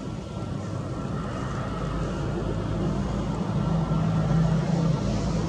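Airbus A320neo's Pratt & Whitney PW1100G geared turbofan engines running as the airliner rolls along the runway, a steady low hum with a faint higher whine that grows louder.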